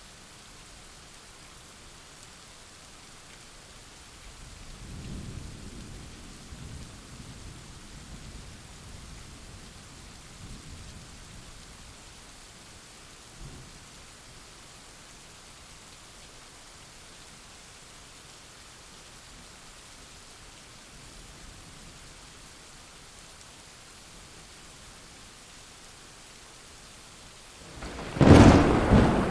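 Steady rain falling, with a low rumble of thunder rolling for several seconds about five seconds in. Near the end a loud thunderclap breaks sharply.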